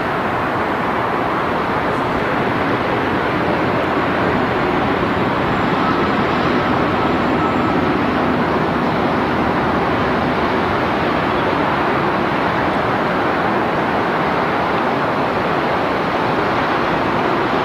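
Diesel-electric locomotive hauling a train as it approaches: a steady engine and rail noise that swells slightly partway through, mixed with wind on the microphone.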